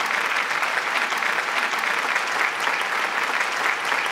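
Audience applauding steadily, many hands clapping at the close of a speech.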